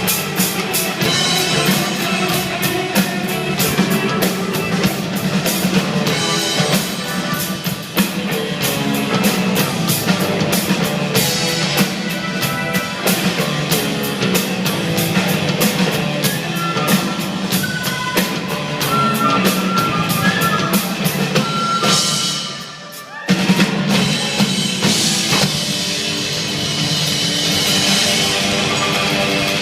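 Live psychedelic rock band playing an instrumental passage, with the drum kit to the fore over guitars and bass. About 23 seconds in the band breaks off for a moment, then comes back in together.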